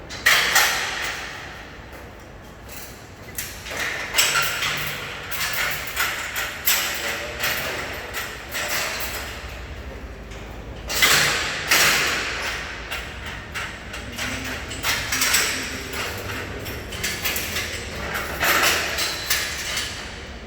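Metal scaffolding parts being taken apart and handled: repeated clanks, knocks and scraping of metal on metal, loudest about a second in, around four to seven seconds in, around eleven seconds in and near the end.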